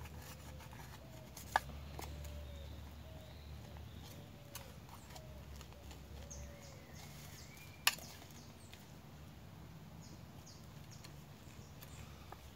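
A spoon clinks sharply against a metal pan twice, about a second and a half in and again near eight seconds, while food is stirred. Faint repeated bird calls and a steady low hum lie underneath.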